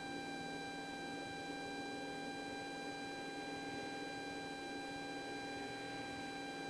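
Faint, steady electrical hum in the aircraft's intercom audio feed, with a thin high whine made of several fixed pitches and a light hiss.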